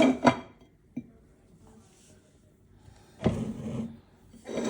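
Kitchen utensils and cookware handled: a sharp clinking clatter at the start, a single click about a second in, then two short knocking, scraping noises near the end.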